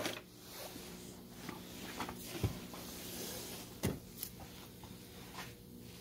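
A few light knocks and clicks from gloved hands handling a gasket and a cast-iron cylinder head on the bench, over a faint steady hum.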